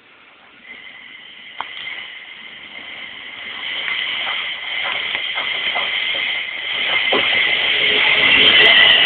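Class 350 Desiro electric multiple unit running into the platform and growing steadily louder, with a steady high whine and a few sharp clicks from the wheels on the rails.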